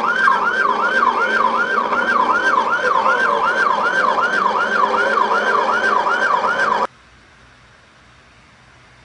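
Police car siren in its rapid yelp, sweeping up and down in pitch about three times a second, picked up by the patrol car's own dashcam during a pursuit. It cuts off abruptly about seven seconds in, leaving only faint steady hiss.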